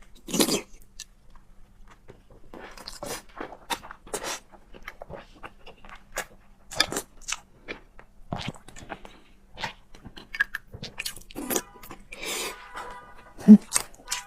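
A person eating fried egg close to the microphone: irregular biting and chewing, with many short wet clicks and smacks, and a louder thump near the end.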